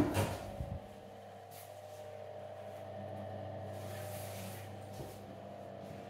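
A door knocks sharply, with a few smaller knocks and rattles in the first second, then a steady low hum with a faint steady whine carries on.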